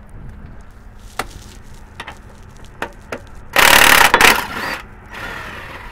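Cordless impact wrench hammering on a rear shock absorber's lower mounting bolt in a loud burst of under a second about three and a half seconds in, then running again more softly near the end. A few light metal clicks from hand tools come before it.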